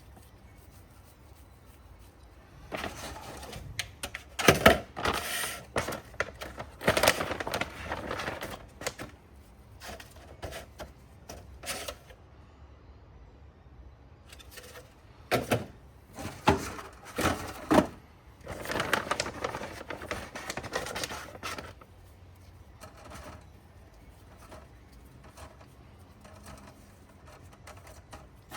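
Packaging being handled and opened: irregular rustling with sharp clicks and knocks in bursts, dying away near the end.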